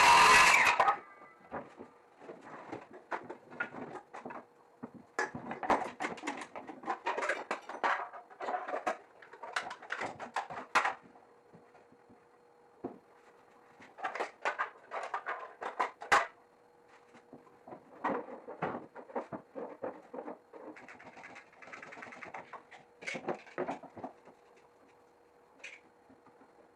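A power tool stops about a second in. It is followed by scattered knocks, clatter and scraping of wood pieces and hand tools being handled, with a faint steady hum underneath.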